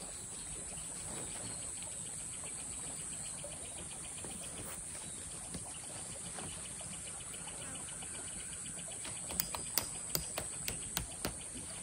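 Insects trilling steadily at a high pitch over the even hiss of a running creek, with a quick run of sharp clicks and knocks in the last couple of seconds.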